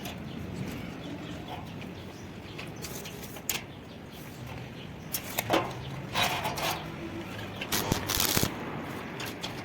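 A few scattered knocks and clicks over a low steady background; the loudest come about five and a half seconds in and in a cluster near eight seconds.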